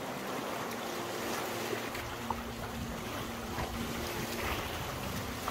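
Steady rush of river rapids heard from a canoe running them.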